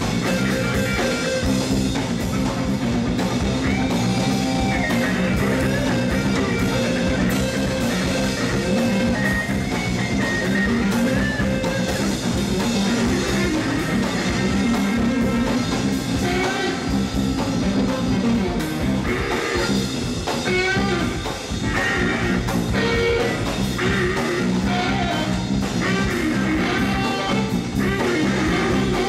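Live rock-blues jam on two electric guitars over a drum kit. The band plays steadily throughout, and from about halfway through a guitar plays a lead line full of bent notes.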